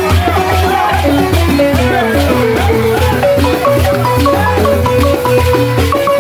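Senufo balafon music in the kapala style: wooden gourd-resonated xylophones played in fast, repeating note patterns over deep bass notes.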